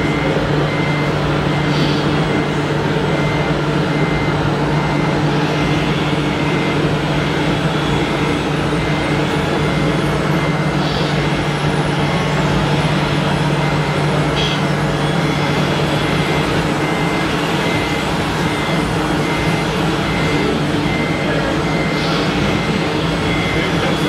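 Radio-controlled model construction machinery running: a steady low mechanical hum with a high warning beeper repeating over and over, like a reversing alarm.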